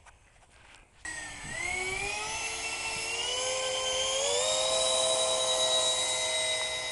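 Electric ducted fans of a four-motor RC model airplane spinning up: about a second in, a high whine starts suddenly, rises in pitch in steps over the next few seconds, then holds steady.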